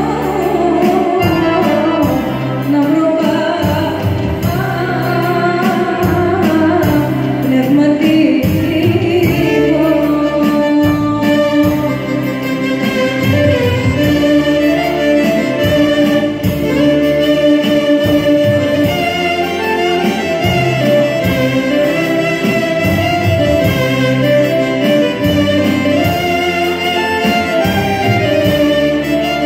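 Live amplified music: an electronic keyboard playing the backing and melody while a woman sings into a microphone over the PA, with stretches where she is not singing.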